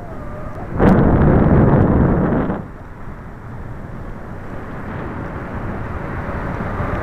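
Wind rushing over a model rocket's onboard camera microphone as the rocket comes down and swings. There is a strong gust about a second in that cuts off sharply after about a second and a half, then a lower, steadier rush.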